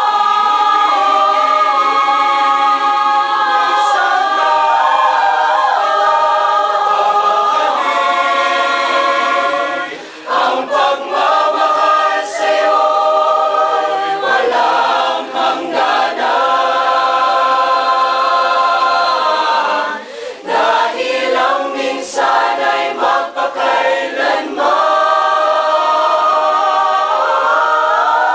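Mixed choir of men's and women's voices singing a cappella, holding sustained chords in several parts. The singing turns softer and broken up, with short gaps, in the middle stretch before the full sustained sound returns.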